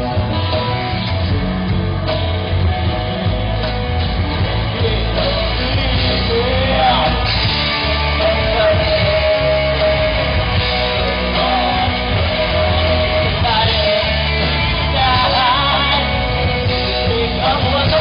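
Live rock band playing: electric guitars, bass and a drum kit. A male singer comes in about five seconds in and sings over the band.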